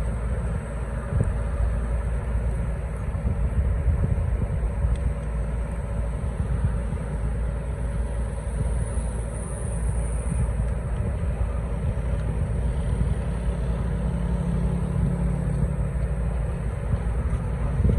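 A heavy engine running steadily with a low rumble.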